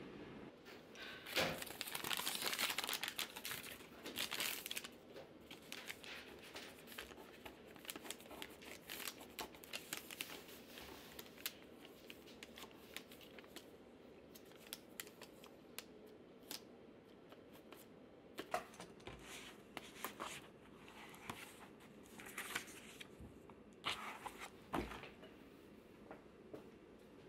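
A crumpled sheet of paper being unfolded and smoothed flat, crinkling loudly for a few seconds near the start. After that come quieter scattered paper rustles and small ticks of a pencil on paper, with a soft thump near the end.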